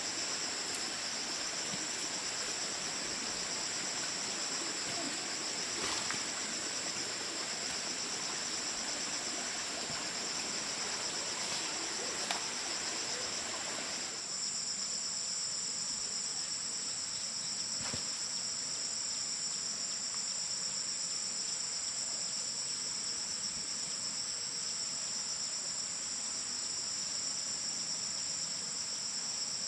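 Steady chorus of insects chirring in two high-pitched bands, with a few light knocks; the lower background noise drops away abruptly about halfway through.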